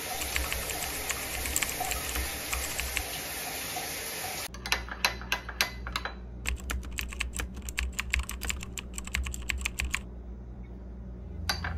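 Shower head spraying water, a steady hiss. About four seconds in it cuts off and a quick run of light, sharp clicks and taps follows, about five a second for some six seconds, then one more click near the end.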